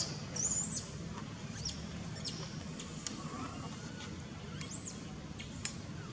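Infant macaque giving a series of short, high-pitched squeaks, the loudest about half a second in, over a low steady background rumble.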